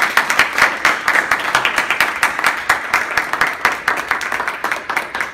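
A small audience applauding: a dense, steady patter of many hands clapping.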